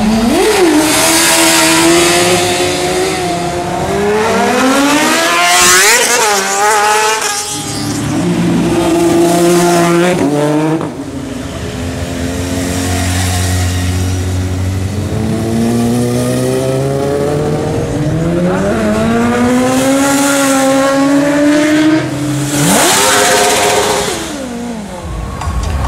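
Sport motorcycles accelerating hard one after another. Each engine's pitch climbs steeply and drops back at every gear change, with the loudest high-revving passes about 6 seconds in and near the end.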